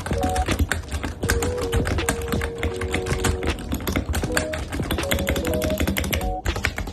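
Fast typing on a computer keyboard: a dense, continuous stream of key clicks, with music playing underneath.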